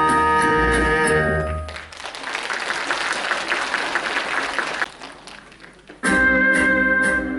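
Music with a steady beat stops about two seconds in, and the audience applauds for about three seconds. The applause fades, and new music with a beat starts near the end.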